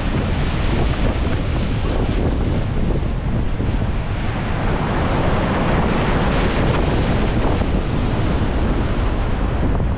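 Strong wind buffeting the microphone, with the steady rush of rough sea surf behind it.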